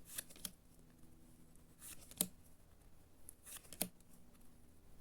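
Yu-Gi-Oh trading cards being handled and sorted by hand: a few short, sharp snaps and soft rustles of card against card.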